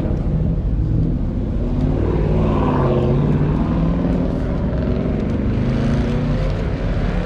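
Car engine running over a steady low rumble, its pitch rising to a peak about three seconds in and then falling away.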